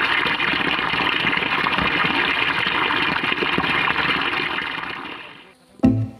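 A thin stream of water falling into a shallow pool with a steady splashing rush, fading out about five seconds in. Plucked string music starts just before the end.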